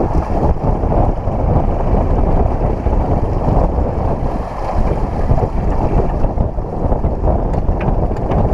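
Steady wind buffeting the microphone aboard a sailing yacht under way, with the rush of water along the hull beneath it.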